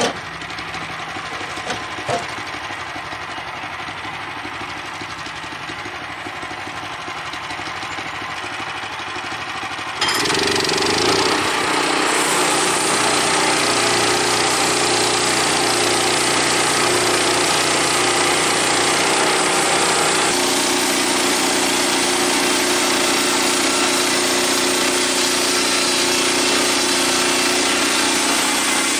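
Engine of a Woodland Mills portable bandsaw sawmill running at idle, then about a third of the way in it suddenly throttles up and runs much louder with the band blade going, holding steady at full speed.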